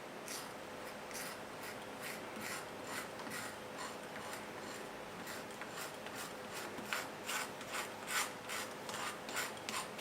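Repeated short scraping strokes, about two or three a second, growing louder over the last few seconds.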